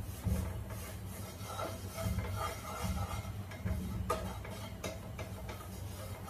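Wooden spatula stirring and scraping ghee and flour frying in a pan on a gas stove, in repeated strokes with a low rumble that swells about once a second, and a couple of sharp taps about four seconds in.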